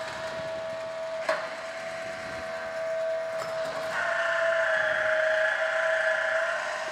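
The 12-volt drive motor of an automatic bandsaw blade sharpener runs a setup cycle with a steady whine, advancing the blade and moving the grinding head. There is a sharp click about a second in, and a rougher hiss rides over the whine from about four seconds in until just before the end.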